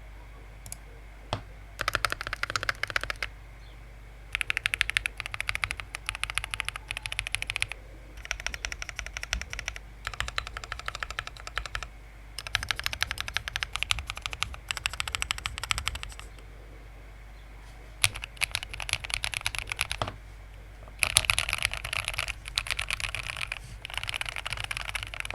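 Typing on a Keychron Q2 aluminium-case mechanical keyboard with Akko switches and PBT keycaps. The typing comes in quick runs of keystrokes a few seconds long, with short pauses between them and a few single key presses.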